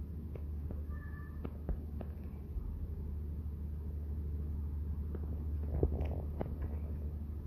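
Steady low hum with scattered faint clicks and ticks, a few sharper ones about six seconds in.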